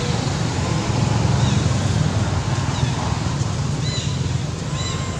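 Outdoor ambience: a steady low rumble and hiss, with a few short, faint high chirps about four and five seconds in.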